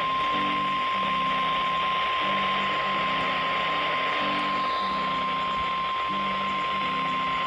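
Emergency Alert System attention tone: a single steady pure tone near 1 kHz, of the kind the National Weather Service sounds before a warning, heard over hiss with soft music chords underneath.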